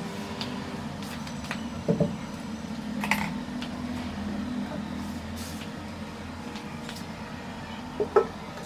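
Steady low background hum with a few scattered clicks and light knocks: a soft knock about two seconds in, a sharper click a second later, and a quick double knock near the end.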